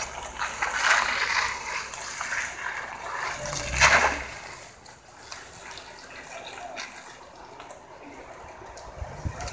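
AM General MV-1 van driving away over a concrete lot: a rushing hiss of tyres and engine, loudest about four seconds in, then fading as it moves off.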